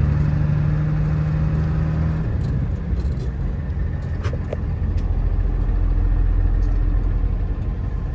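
Diesel truck engine and road noise heard from inside the cab while driving; the steady engine tone drops away about two seconds in, and a few light clicks come near the middle.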